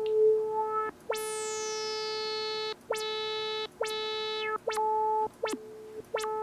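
Prophet-5 Rev 2 analog synthesizer sounding a single repeated note, held about a second and then struck again six times. The first notes open bright and the filter sweeps down, and the brightness held after the sweep changes from note to note as the filter envelope's sustain is turned.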